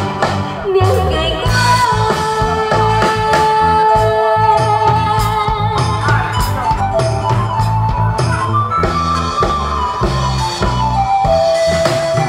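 A woman singing a song into a microphone over an amplified band with a drum kit, with long held notes over a steady beat.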